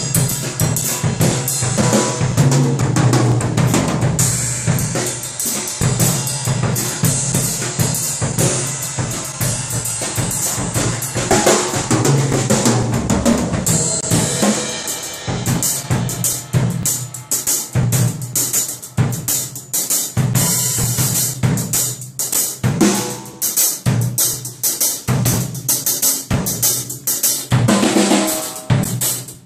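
Drum kit played solo with sticks: snare, toms, bass drum and cymbals. For roughly the first half the cymbals ring on in a dense wash under constant hits; after that the playing breaks into separate, sharper strikes with short gaps between them.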